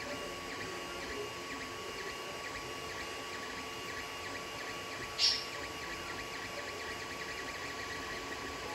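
Creality Ender 3 3D printer running a print: its stepper motors and fans whir steadily, with a steady hum. About five seconds in, a single short, sharp high-pitched blip stands out above it.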